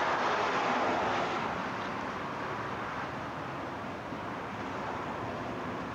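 Steady rushing noise of a vehicle in motion, a little louder in the first second and a half.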